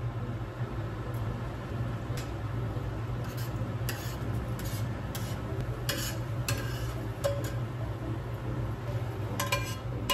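Beaten eggs sizzling in a stainless-steel frying pan while a spatula stirs and scrapes them, with a steady low hum underneath. There are sharp scrapes and taps of the spatula on the pan every couple of seconds, the loudest near the end as the eggs are scraped out onto a plate.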